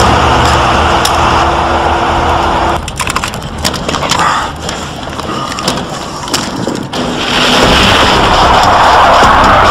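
Car driven hard: engine running loud with road and tyre noise, easing off about three seconds in and building up again about seven seconds in.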